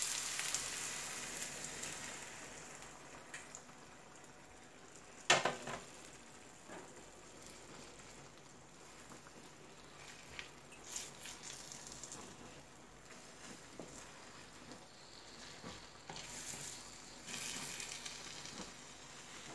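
Beaten egg poured into a hot buttered pan of frying potato and bacon, sizzling, the sizzle dying down over the first few seconds. A spatula then scrapes and taps in the pan, with one sharp knock about five seconds in.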